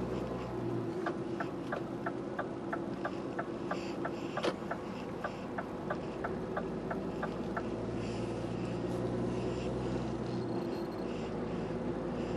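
Lorry's indicator ticking in the cab, about four ticks a second, stopping about seven and a half seconds in, over the steady hum of the engine and road noise. One louder click about halfway through.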